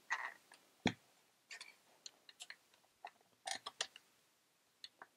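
Plastic parts of an opened mini sewing machine clicking and tapping as it is handled and turned over, a few irregular small clicks with one sharper knock about a second in.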